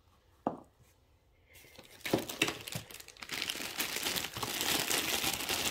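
Clear plastic bag crinkling as a bag of wooden craft sticks is pulled out of a cardboard box and handled, starting about two seconds in and growing louder. A single light knock about half a second in.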